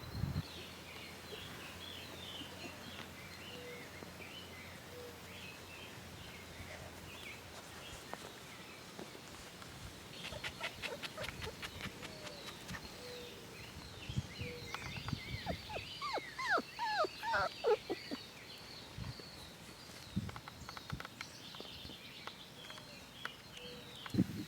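Quiet outdoor background with faint high bird chirps. About two-thirds of the way in, a five-week-old mini Bernedoodle puppy gives a run of short, high whimpers that fall in pitch.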